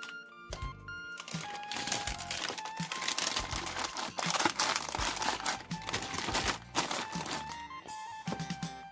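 Plastic bags crinkling and rustling, with sharp crackles all through, as plastic model-kit runners are handled. Background music plays underneath.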